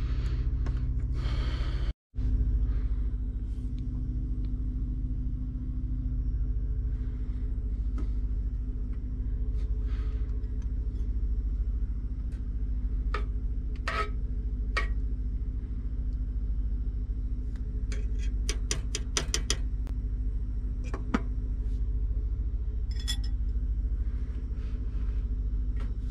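Steady low rumble inside a truck cab, over which a saucepan's glass lid and a utensil clink against the pot a few times. About halfway through comes a quick run of about a dozen light metallic taps.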